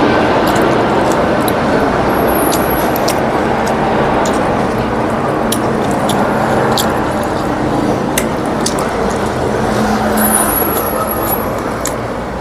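Steady road traffic noise from passing vehicles, with scattered short clicks and two brief high squeals, about 2 seconds in and near the end.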